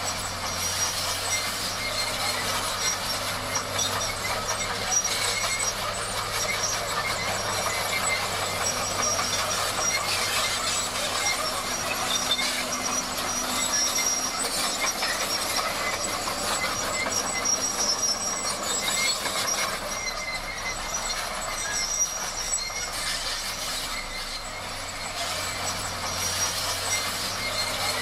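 Crawler bulldozer working: its diesel engine runs with a steady low hum while the steel tracks clatter and squeal continuously.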